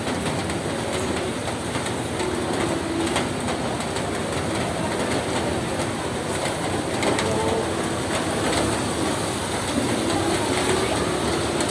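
Steady rain falling on a roof: an even, dense hiss with scattered ticks of drops.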